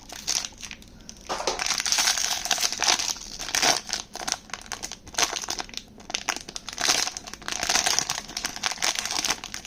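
Toy blind-box packaging crinkling and crumpling as it is opened by hand: a dense run of irregular crackles, with a short lull about a second in.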